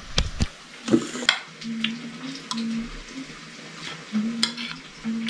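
Metal spoons clicking and scraping against a plate and a pan being stirred on the stove, with a faint frying sizzle underneath. The clicks come in a cluster in the first second and a half and once more about four and a half seconds in.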